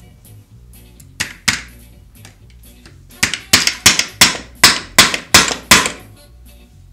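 Hammer blows knocking the old, sheared key out of an electric string trimmer's ratchet: two sharp metallic strikes about a second in, then a run of about eight more at roughly three a second, each with a short ring.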